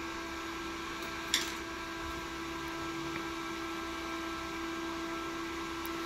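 Server-type cooling fan blowing air through a shroud over the induction heater's coil: a steady rushing drone with a constant hum under it. A single light click about a second and a half in.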